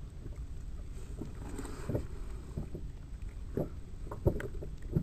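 A few dull knocks and thumps as a landed common dentex is handled in a landing net on a small inflatable boat, the sharpest a little after four seconds, over a steady low rumble of wind and water.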